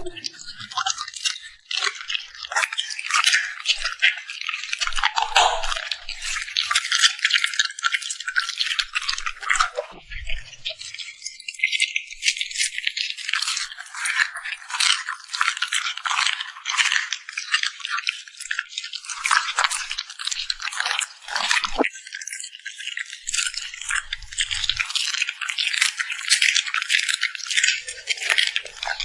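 A dog eating: a continuous rapid stream of wet crackling crunches and lip smacks.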